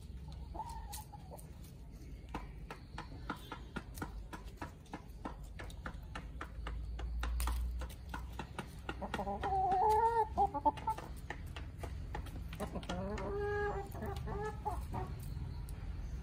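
Backyard chickens clucking, with two drawn-out clucking calls in the second half. Before them comes a run of quick taps as the birds peck.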